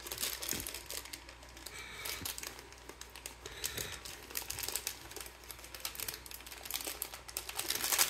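Thin clear plastic packaging bag crinkling in the hands as it is worked open, with irregular crackles throughout.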